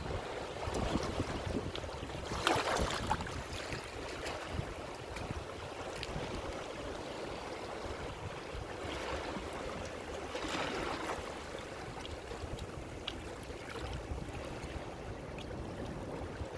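Ocean waves washing in, a steady wash of surf with a rumbling low end and two waves breaking louder, about two and a half seconds in and again about ten seconds in.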